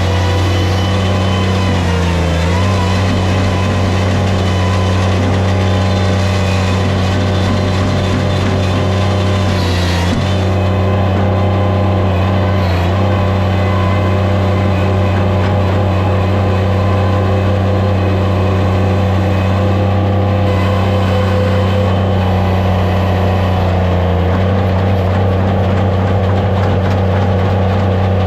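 Skid steer loader engine running steadily at working speed, its pitch dipping briefly about two seconds and ten seconds in.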